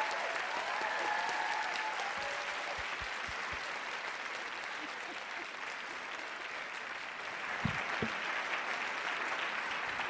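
Large theatre audience applauding, a steady dense clapping with a few dull low thumps mixed in.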